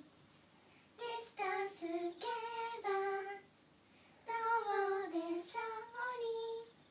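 Young girls singing a simple melody without accompaniment, in two short phrases with a brief pause between them.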